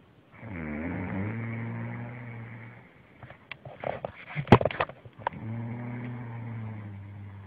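A woman snoring in her sleep: two long, low, buzzing snores a few seconds apart, the first dropping in pitch as it begins, with a burst of crackling, clicking breath noises between them.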